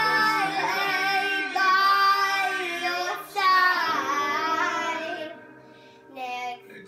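A young girl singing loudly over backing music, holding long, bending notes. Her voice drops away about five seconds in, with one short note near the end.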